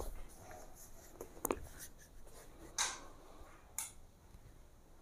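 Faint rustling and two small clicks as a person shifts body and clothing on a yoga mat while moving into a deep squat.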